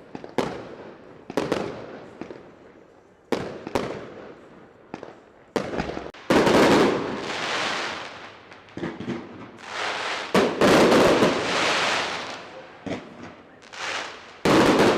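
Fireworks show: a few sharp single bangs in the first seconds, then loud spells of dense crackling and booming about six seconds in, again around ten seconds, and near the end.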